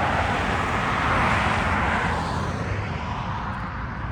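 Car on a busy city road: steady road and tyre noise with a low rumble, swelling briefly about a second in and easing off after about two seconds.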